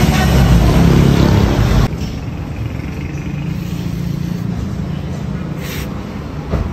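Ford Everest's exhaust through an aftermarket K-Racing muffler with a blued stainless tip, the engine running loud and raised for about two seconds. It then drops abruptly to a steady, quieter idle.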